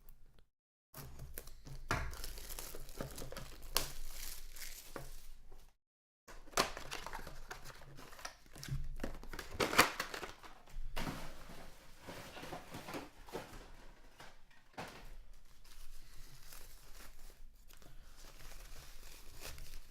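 Packaging of a sealed autographed-baseball box being torn and crinkled open by hand: irregular rustling and crackling of wrapping, with a brief break about six seconds in.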